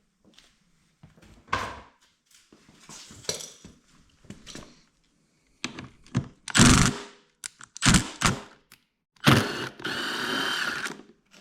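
Clatter and knocks of tools and motorcycle parts being handled, then a cordless power driver runs in a burst lasting about a second and a half near the end, as a body panel's fasteners are removed.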